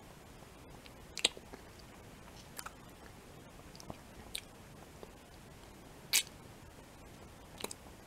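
Close-miked mouth sounds of lips and tongue sucking on a chocolate umbrella lollipop: a handful of short, separate smacks and clicks, the loudest about six seconds in.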